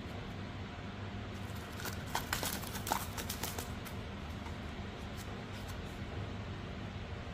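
Cellophane-wrapped hard sweets tipped out of a plastic Cadbury Dairy Milk Lickables cup: a quick run of light clicks and crinkles, from about one and a half to four seconds in, over a steady background hiss.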